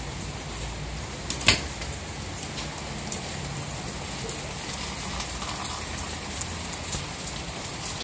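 Steady rain falling, with scattered small drip ticks and one sharp knock about a second and a half in.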